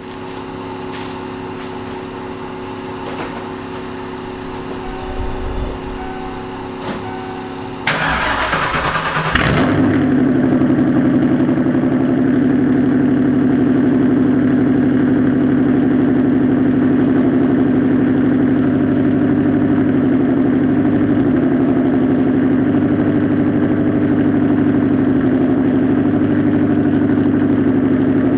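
A cammed, straight-piped 4.6L two-valve Ford modular V8, with long tube headers and an H pipe, is cranked and catches about eight seconds in. It then idles loud and steady through the open exhaust. Before the start there is only a quieter steady hum.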